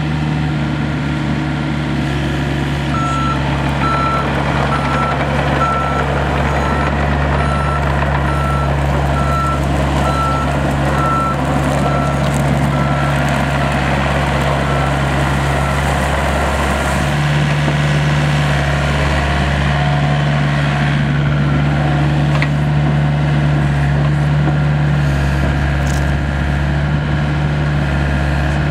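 Gehl 803 compact excavator's diesel engine running steadily, with its travel alarm beeping about twice a second for some thirteen seconds, the sign that the machine is tracking. The engine note rises slightly about seventeen seconds in.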